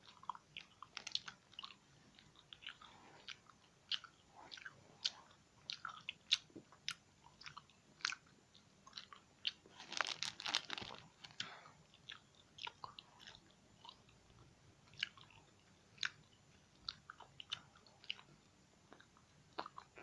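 A person chewing worms close to the microphone: irregular crunchy clicks of the jaw and mouth, thickening into a denser run of crunching about ten seconds in.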